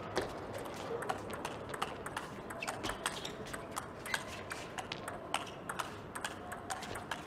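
A fast table tennis rally: the celluloid-type ball clicking off the rackets and the table in quick succession, a few sharp clicks each second.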